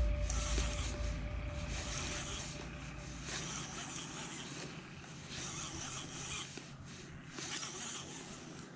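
Star-drag casting reel being wound with a rasping, rubbing sound as line comes in under the load of a hooked fish, a spotted weever; the noise swells and fades every second or so. A dull knock right at the start.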